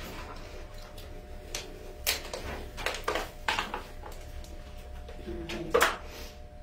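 Clear plastic crinkling and being handled, a string of short crackles and clicks, with a louder knock near the end.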